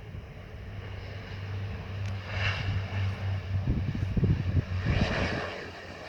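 Passenger airliner passing on its landing approach: its engine noise swells to a peak a few seconds in, with heavy low rumble, then eases off.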